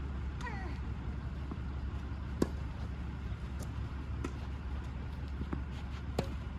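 Tennis ball being struck by rackets and bouncing in a rally: a series of sharp pops, the two loudest about two and a half and six seconds in, over a steady low hum.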